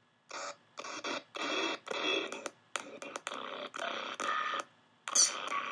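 Soundtrack of the Adobe Flash Player promo video streamed through a remote desktop session, coming through choppy: thin-sounding chunks of about half a second broken by short dropouts. The dropouts are the sign of a slow, high-latency 3G-type connection starving the audio stream.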